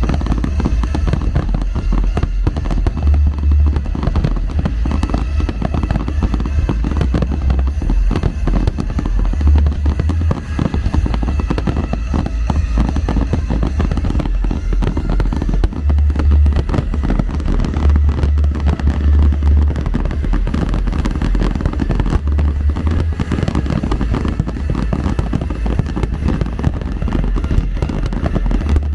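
Fireworks display: aerial shells bursting in a rapid, unbroken barrage of bangs and deep booms.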